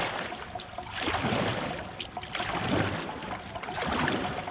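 Double-bladed kayak paddle dipping and pulling through calm sea water, a splash with each stroke, swelling and fading about every second or so.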